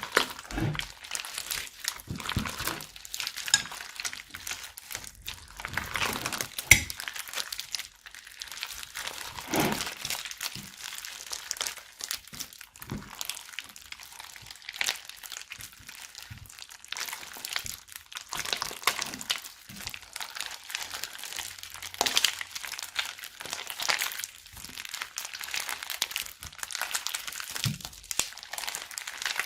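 Slime being squished, stretched and mixed by hand, giving a dense run of irregular crackles and small pops with an occasional sharper click.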